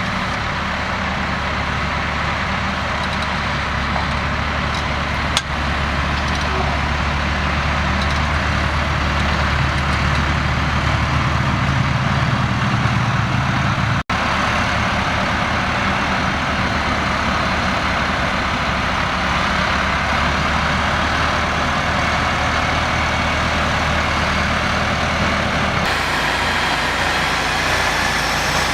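Massey Ferguson tractor diesel engine running steadily at work in the field. Near 14 s there is a brief dropout and near 26 s the sound changes abruptly.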